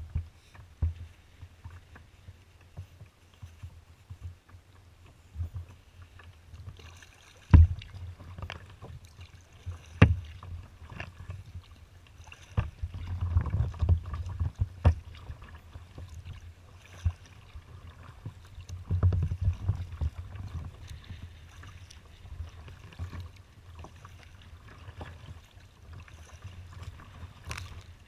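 Choppy water lapping and slapping against a kayak's hull, with wind rumbling on the microphone in stronger gusts around the middle. Several sharp knocks cut through, the loudest about seven and a half and ten seconds in.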